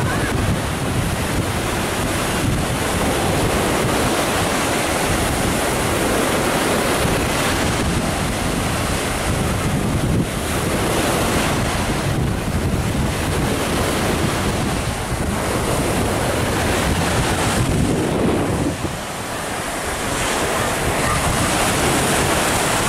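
Sea surf breaking and washing on a sandy beach in a strong wind, with wind buffeting the microphone as a low rumble. The wind eases briefly about nineteen seconds in.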